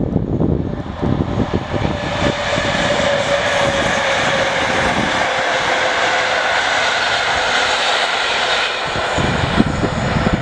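Electric-hauled PKP Intercity passenger train passing close at speed: a loud, steady rush of carriages and wheels on the rails that swells about two seconds in and eases near the end, with a faint steady whine over it.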